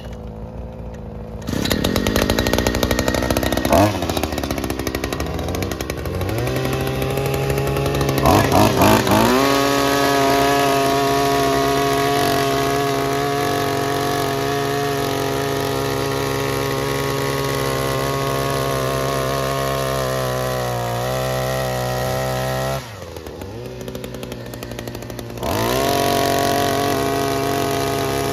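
62cc two-stroke earth auger engine at full throttle as the auger bores into soil, revving up and down before settling into a steady high-speed drone. About two-thirds of the way through it drops to a lower speed for a couple of seconds, then revs back up.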